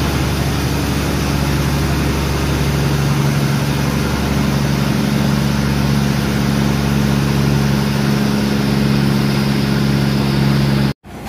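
A train's diesel engine running steadily at a constant pitch, a loud even drone.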